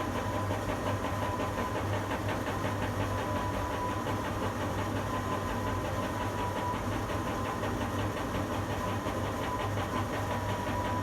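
Steady machinery hum in a tower crane's cab: a low hum with a thin, high, steady whine over it and a fast, even flutter, at a constant level.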